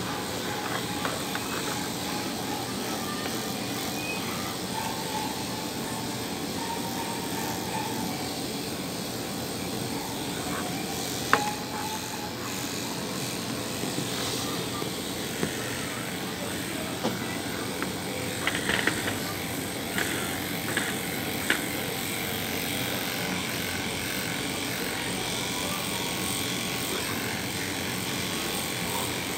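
Steady whir of electric grooming equipment running, with a few light clicks and knocks about a third of the way in and again past the middle.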